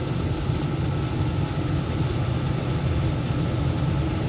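Furnace running: a steady low rumble with a faint thin whine above it.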